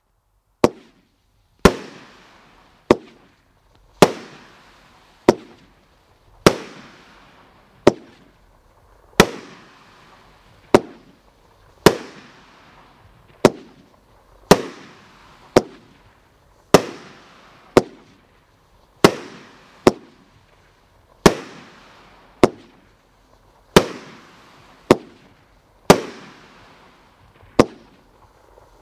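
A 36-shot, 500-gram consumer fireworks cake ('Rain Maker') firing in a steady volley of sharp bangs, roughly one a second. Each bang trails off over about a second.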